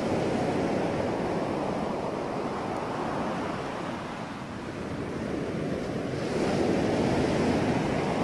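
Ocean surf: a continuous wash of waves breaking on a beach. It eases off around four seconds in, then swells louder again about six seconds in as another wave comes in.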